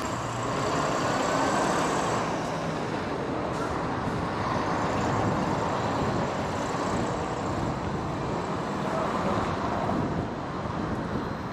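Road traffic noise with motor vehicles passing, swelling and easing a little as they go by.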